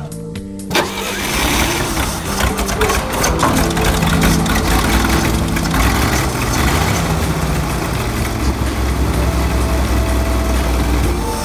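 Dodge Power Wagon's flathead six-cylinder engine starting about a second in, then running steadily.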